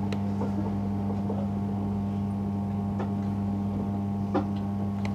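Class 312 electric multiple unit running at a steady speed, heard from inside the carriage: an even, steady hum over a rumble, with a few sharp clicks, the loudest about four seconds in.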